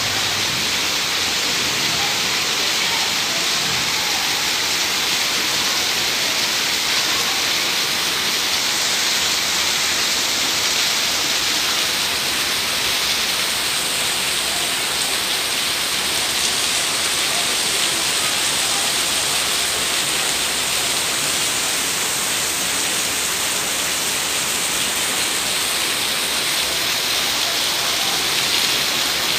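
Heavy rain pouring down in a steady, even hiss, falling on the street and on corrugated metal roofs.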